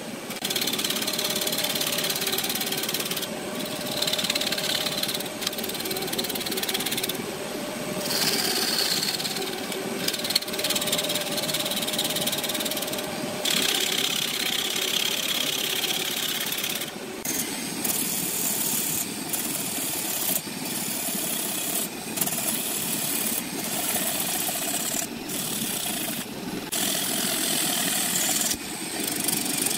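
Wood lathe spinning a wooden blank while a hand-held turning tool cuts into it: a steady scraping hiss over the hum of the lathe, with short abrupt breaks, coming about every second in the second half.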